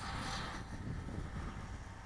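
Wind rumbling on the microphone, with the faint steady whine of a small RC foam airplane's brushed coreless motor flying some way off.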